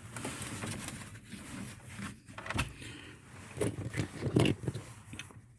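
Irregular scraping and rustling of someone shifting about under a truck, with scattered light knocks and a few louder short bursts.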